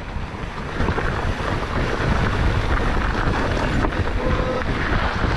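Wind buffeting the microphone over the rumble of mountain bike tyres rolling on a dirt trail, with light rattles from the bike.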